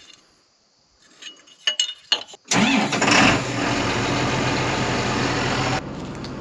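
A John Deere tractor's diesel engine being started from cold: a few faint clicks, then it cranks and catches about two and a half seconds in and settles into a steady idle, quieter near the end.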